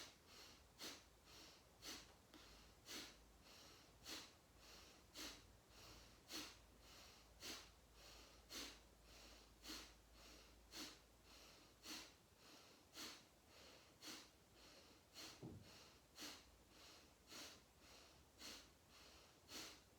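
Kapalabhati (breath of fire): a woman's forceful pumped exhalations through the nose, short sharp puffs about once a second, each followed by a passive in-breath.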